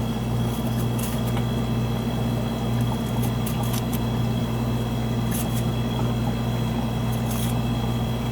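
Running refrigerator's compressor and condenser fan giving a steady low hum, while a thin brush is swept over the dusty condenser coil fins in a series of short, scratchy strokes.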